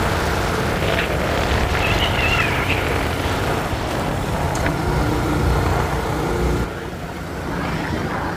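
Motorcycle engine running and wind rushing over the microphone while riding. About two seconds in, a brief wavering high-pitched cry rises over the noise. The sound drops and changes abruptly near the end.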